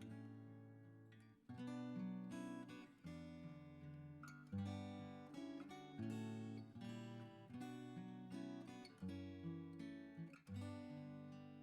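Acoustic guitar music, strummed and plucked chords changing every second or so.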